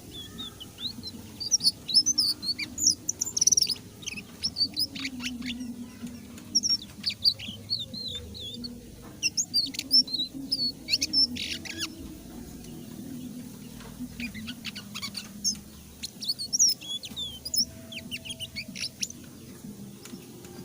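Indigo flycatcher (sikatan ninon) singing vigorously and without pause: a rapid, jumbled run of high, sweeping chirps and twitters.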